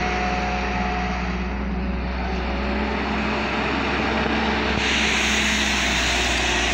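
A JCB tracked excavator's diesel engine runs steadily under load, with steady whining tones from the hydraulics as the boom and bucket work and the upper body swings. About five seconds in, a louder hiss comes in over the engine.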